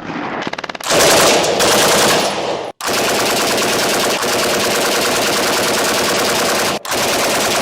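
7.62 mm machine guns firing long automatic bursts. In the first second the shots are rapid but separate; then comes a louder, much denser stream of fire. It breaks off sharply twice, about three seconds in and again near the end.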